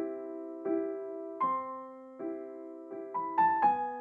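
Background music: a piano playing slow, gentle notes and chords, each struck and left to fade, with the notes coming a little quicker near the end.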